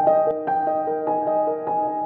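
Background music: a soft piano or keyboard melody of gently struck, ringing notes at a steady, unhurried pace.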